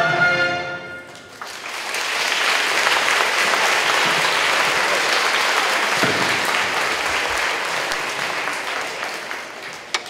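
A song's final held note dies away about a second in, then an audience breaks into applause. The clapping holds steady for several seconds and tapers off near the end.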